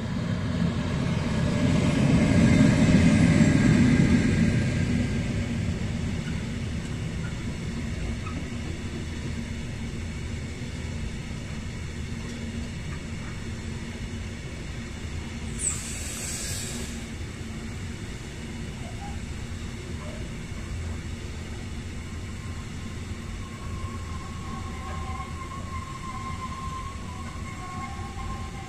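Freight train passing close by: the electric locomotive goes by loudest about three seconds in, then a long string of covered hopper wagons rolls past with a steady rumble. A brief high squeak comes about halfway through, and a faint thin whine sets in near the end.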